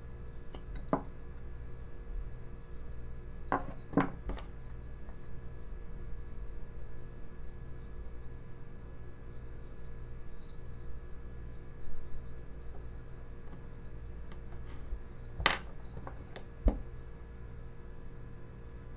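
Carving knife cutting chips from a basswood block: scattered light clicks and taps of blade on wood, the sharpest about three-quarters of the way through, over a steady low hum.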